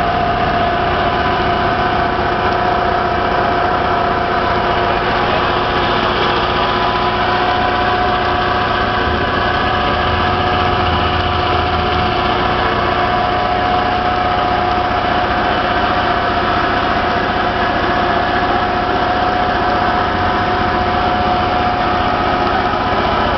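An engine running steadily at idle: a constant drone with a steady whine, unchanged throughout.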